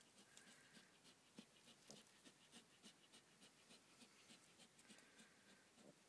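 Faint, soft grunts from a Large Black sow and her day-old piglets lying together in the leaf litter, with light scratchy rustling and clicking of dry leaves throughout.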